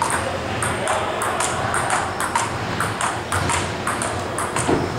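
Table tennis rally: the ping-pong ball clicking off the paddles and bouncing on the table in quick alternation, a few sharp ticks a second.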